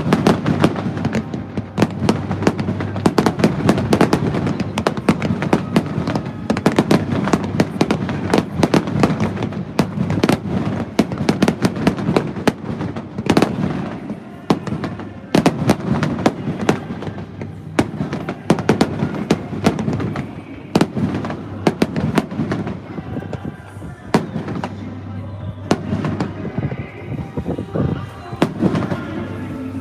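Fireworks going off in a dense barrage of bangs and crackles, thinning out in the last third, with music underneath.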